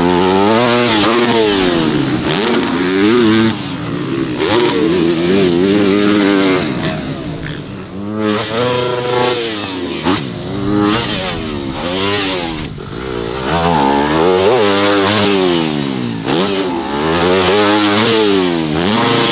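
Motocross bike engines revving up and falling back again and again as the riders accelerate and back off, the pitch climbing and dropping every second or two.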